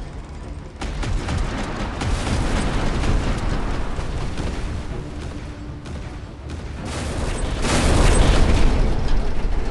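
Rumbling battle blasts and rushing noise, kicking in suddenly about a second in, easing, then swelling to the loudest surge about eight seconds in.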